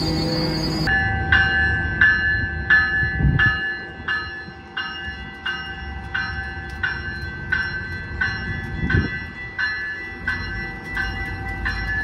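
Commuter train wheel squeal that stops about a second in. A train bell then rings in even strokes, about three a second, over the low rumble of the rail cars moving along the platform.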